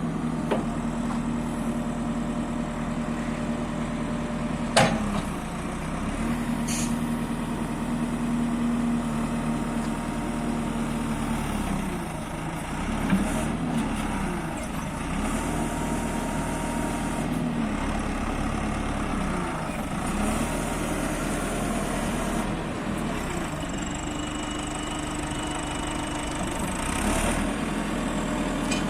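JCB 4CX backhoe loader's diesel engine running steadily, its speed dipping and recovering a few times. There is a single sharp knock about five seconds in.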